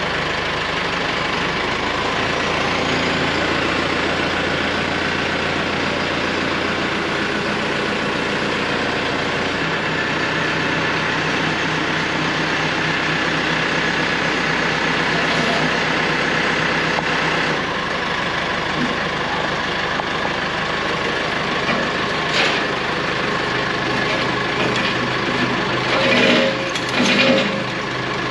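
A loader's engine idling steadily. A few short metallic clanks come near the end as the chain hoist is handled.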